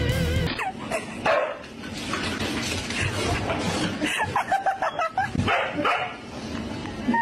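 A dog barking and yipping in short, uneven bursts, with a quick run of yips about four seconds in.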